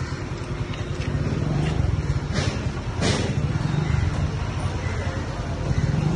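A 7.5 kW portable petrol generator running steadily with a low, even rumble. There are a couple of brief sharper noises near the middle.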